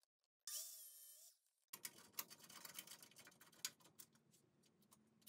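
Faint, rapid clicks and light taps of hand work assembling an aluminium extrusion frame, after a brief faint hiss about half a second in.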